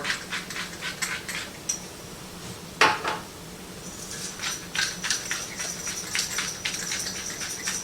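Salt and pepper being added to a pan of simmering sauce: quick runs of small clicks, with one louder clank of metal on the pot just before three seconds in.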